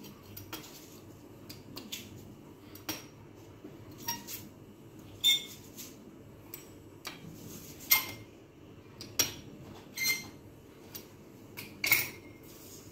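Metal pizza cutter striking and rolling across a stone countertop while cutting dough strips into small squares: irregular sharp clicks and taps, some with a brief metallic ring.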